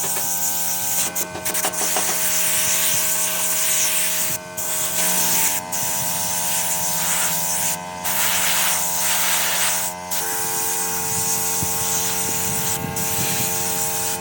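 Workshop power tool running steadily with a strong hiss, with a few short breaks.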